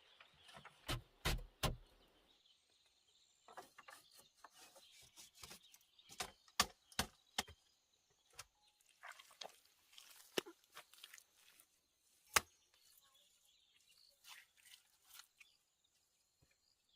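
Irregular sharp knocks, like tool strikes on wood: a few in the first two seconds, a quick run of them around six to seven seconds in, and a single loudest one about twelve seconds in.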